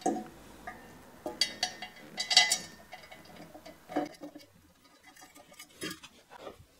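Light metallic clinks and taps as polished exhaust header pipes are worked into place against a 6.2 litre V8's cylinder head, busiest in the first half and sparser near the end.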